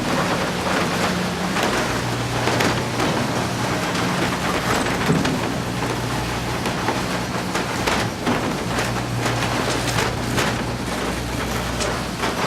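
Cable car running uphill: a steady low motor hum that steps in pitch now and then, over a constant rushing noise with scattered rattles and clicks.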